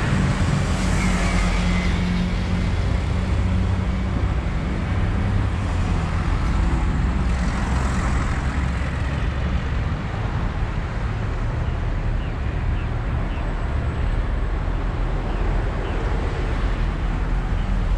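Steady road vehicle noise: a continuous low rumble and hiss of traffic or a moving vehicle.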